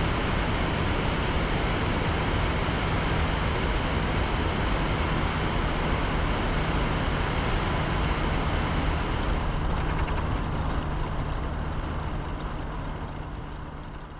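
Rotax 447 two-stroke twin engine of a Mini-Max ultralight running at a steady speed, mixed with wind rushing over the wing-mounted camera. The sound fades away over the last few seconds.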